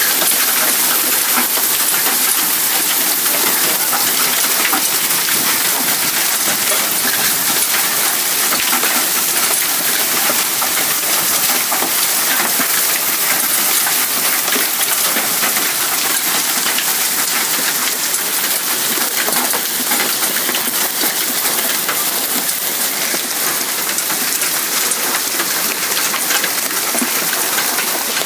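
Hailstones pelting down in a storm: a dense, steady clatter of countless small impacts.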